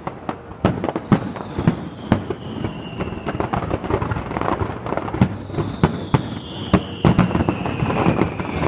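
Fireworks finale: a dense, rapid barrage of shell bursts, several bangs a second with crackling in between.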